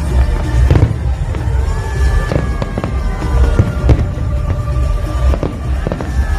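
Aerial fireworks display: shells bursting in a rapid, irregular run of sharp bangs over a constant deep rumble.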